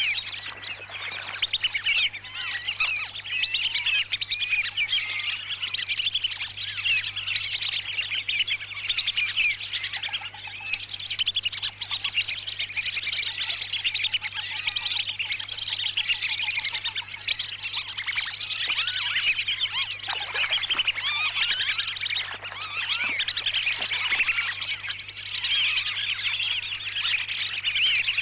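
Recorded calls of a flock of wandering whistling ducks (belibis kembang) played back as a lure: a dense, unbroken chatter of high whistles. A steady low electrical hum runs underneath.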